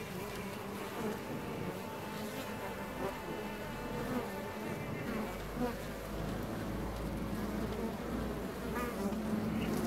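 Many honeybees buzzing as they fly in and out of a hive entrance, a crowd of overlapping hums, each rising and falling in pitch as a bee passes close.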